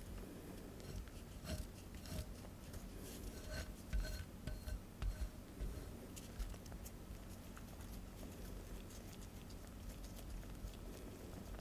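A kitchen utensil stirring madeleine batter in a mixing bowl, with light irregular taps and scrapes against the bowl. A few sharper clinks come in the middle.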